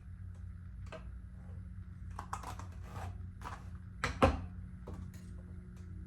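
Small clicks and handling noises of clip-in hair extension pieces and their clips, with one louder knock about four seconds in, over a steady low hum.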